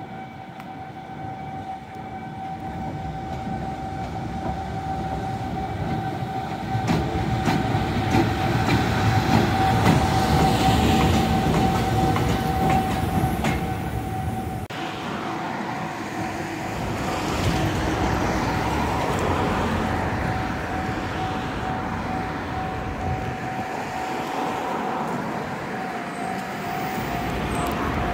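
EF210 electric freight locomotive moving through a rail yard: a steady high whine over the rumble of wheels on the track. The sound grows louder to a peak about ten seconds in, then eases off.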